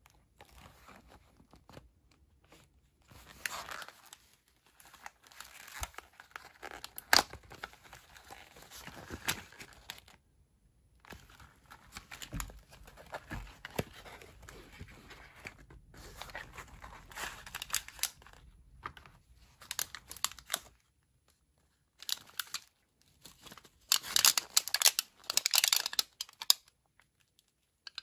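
Hands opening and handling a cardboard ration reheating-kit box and its packaging: stop-start rustling, crinkling and tearing with a few sharp clicks, loudest in a burst of crinkling near the end.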